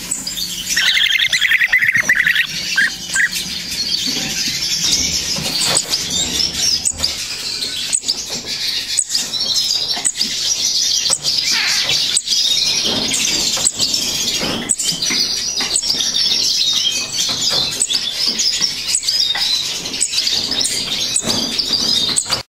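Young European bee-eaters giving their food-begging calls, a continuous high chattering of many calls, with frequent short clicks mixed in.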